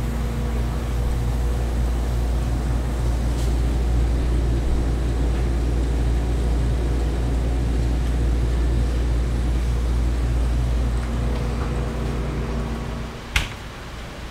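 Walk-in cooler's refrigeration unit running, a loud steady low hum with a few steady tones, which drops away sharply near the end; a single sharp click follows just after.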